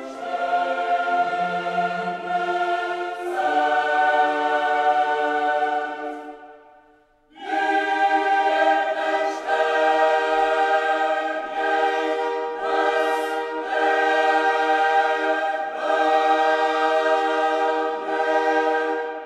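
Background choral music: a choir singing long held chords. It fades out about six seconds in and comes back about a second later.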